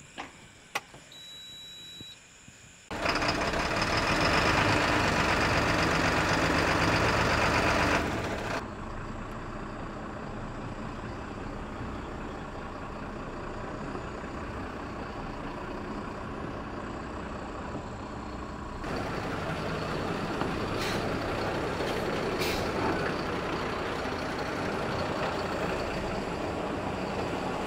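Diesel lorry engine started after standing unused for several days: it comes in suddenly about three seconds in, runs loud for about five seconds, then settles to a steadier, quieter run. The sound changes again about two-thirds of the way through as the truck is moved, with a few short sharp sounds.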